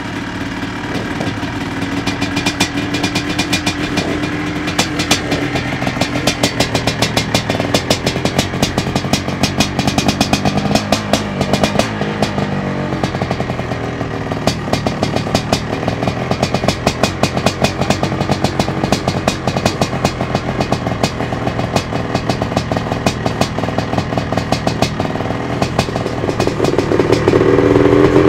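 Honda CR480 two-stroke single-cylinder motocross engine running after start-up, the throttle blipped so the revs rise and fall, and it gets louder near the end.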